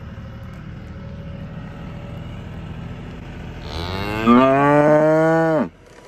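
A cow mooing once, close by: one long call of about two seconds that rises in pitch at the start, then holds and cuts off suddenly. Before it there is only a steady low rumble.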